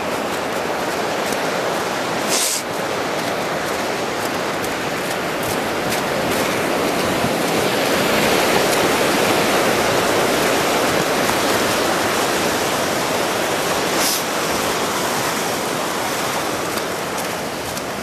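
Water rushing down an icy waterfall, a steady noise that swells for a few seconds in the middle. Two brief knocks stand out, one a couple of seconds in and one near the end.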